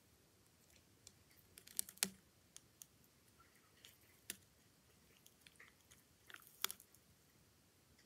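Brazilian white knee tarantula crunching on a mantis: faint, scattered crackling clicks, the loudest about two seconds in and again near the end.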